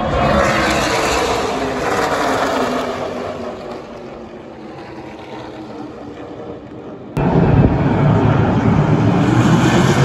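A pack of NASCAR Craftsman Truck Series race trucks at speed, their V8 engines going past with a falling pitch and fading away. About seven seconds in, a cut brings a closer, louder pack of trucks going by.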